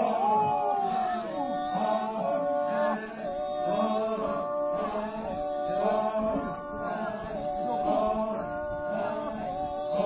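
A group of men chanting a Sumi Naga folk song together, several voices on held notes in short repeated phrases.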